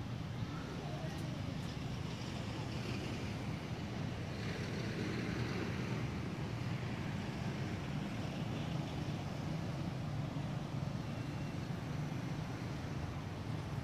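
Steady low outdoor background rumble with a faint hiss, and no distinct event standing out.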